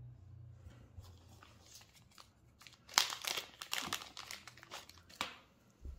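Small clear plastic bag crinkling as it is handled to get brass SMA adapters out. The crackles come in a dense flurry about three seconds in, with a sharp click about five seconds in.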